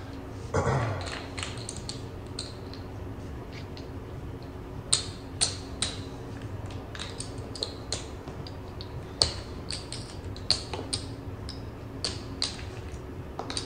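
Casino chips clicking as a blackjack dealer pays out bets on the table: scattered, irregular sharp clicks over a steady low hum.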